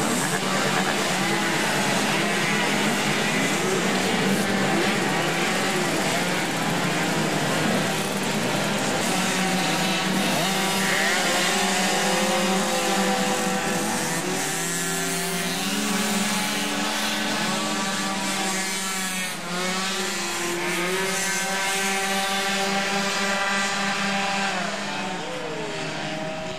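A pack of 50cc two-stroke racing mopeds and scooters running together, several engines revving at once, their pitches rising and falling.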